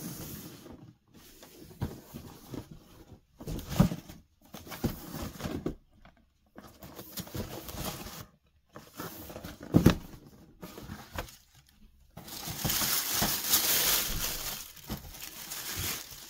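Cardboard shoebox being handled and opened by hand, with a few sharp knocks of the box and lid, then a longer stretch of tissue paper crinkling as the sneaker is uncovered in the last few seconds.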